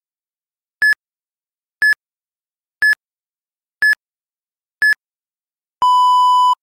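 Interval-timer countdown: five short, high electronic beeps one second apart, then a longer, lower beep near the end that marks the change to the next interval.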